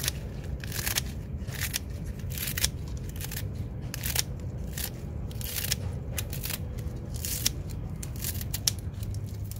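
Scissors snipping through old cabbage leaves: an irregular run of crisp cuts, about two to three a second, over a steady low hum.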